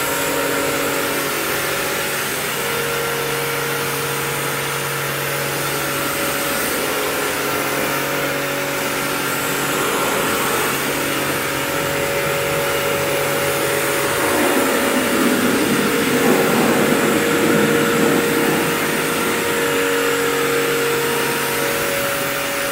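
Pressure washer running steadily, a motor-and-pump hum under the hiss of the water jet spraying a car's bodywork. The spray gets louder and rougher for a few seconds past the middle.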